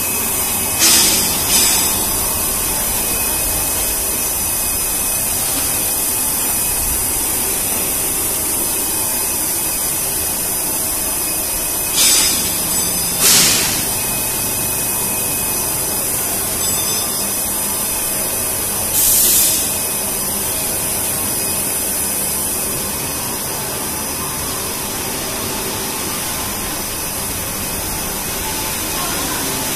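Blown-film extrusion line running, a steady loud hiss of moving air. Short, sharper hissing bursts come about a second in, twice in quick succession near the middle, and once more a few seconds later.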